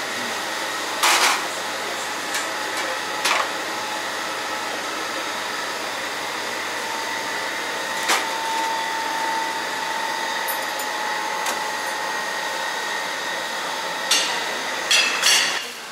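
A steady mechanical whir runs throughout, with a few sharp metal clanks and a quick cluster of clatters near the end as the roast duck is lifted off its steel hook and set down on a steel tray.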